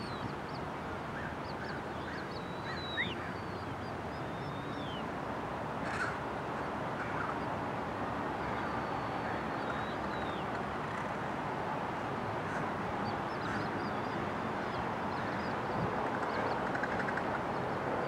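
Steady outdoor rush of noise with wild birds calling over it: scattered thin, high whistles and short sliding calls, plus some coarser caw-like calls. A single sharp tick comes about six seconds in.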